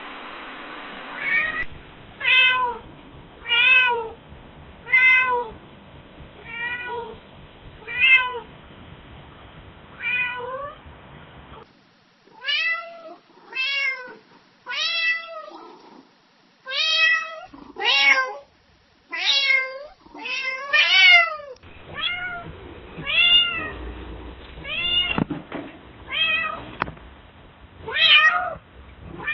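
A domestic cat meowing over and over, short meows about one a second, each rising then falling in pitch, in several recordings one after another.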